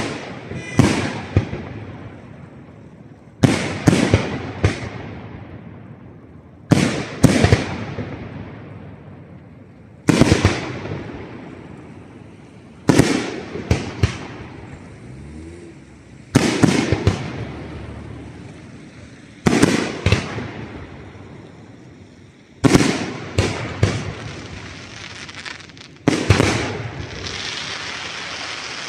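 Aerial firework shells bursting overhead about every three seconds, often two or three bangs in quick succession, each bang trailing off over a second or two.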